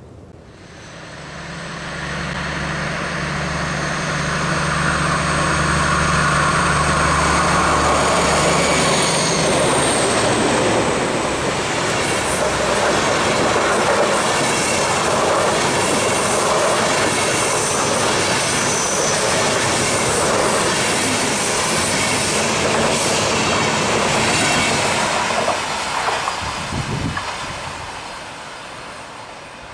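Two DB Class 218 diesel locomotives working in tandem pass at speed with an InterCity train. Their engine drone lasts about the first ten seconds, then the coaches roll by with the wheels clicking over the rails, fading away near the end as the train recedes.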